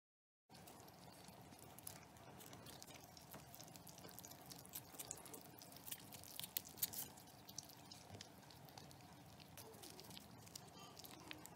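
Two kittens licking at a squeezable cat-treat tube: faint, quick wet clicks and smacks over quiet room tone.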